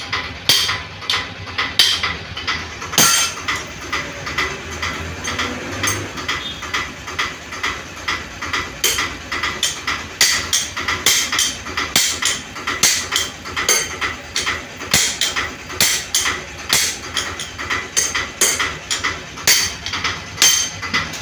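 Hammer blows on a spanner fitted to a nut on a dismantled engine, a steady run of sharp metal strikes at about two a second, driving the nut tight.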